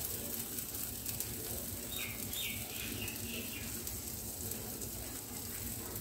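Faint steady sizzle of an oats chilla cooking in a pan, with a bird chirping a few times in quick succession about two seconds in.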